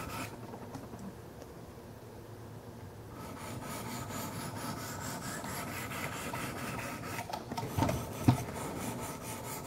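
A 600-grit diamond stone on a Wicked Edge guided sharpener scraping softly along the edge of a Kershaw Skyline's 14C28N steel blade, refining the bevel. It goes quieter for a few seconds near the start, and a few light clicks come near the end.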